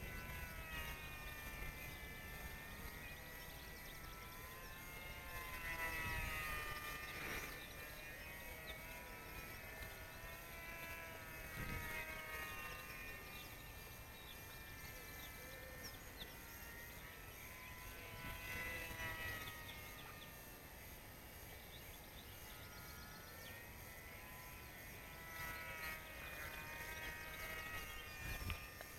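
Sunrise Pole Cat RC model plane's motor and propeller whine: several tones that slide up and down in pitch as the plane circles, swelling about four times as it passes closer.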